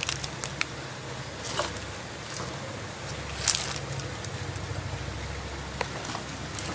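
Spinach leaves cooking in a pan of boiling water: a steady low rumble with scattered crackles and pops, and the leaves being pressed down by hand near the end.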